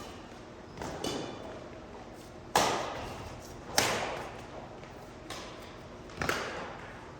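Badminton rally: rackets striking a shuttlecock five times, back and forth, about once every second and a half, each hit a sharp crack with a short echo.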